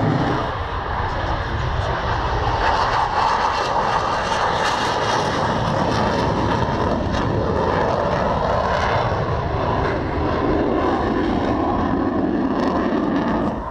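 Engine noise of a display aircraft flying over the airfield: a continuous loud engine sound whose pitch shifts as it passes.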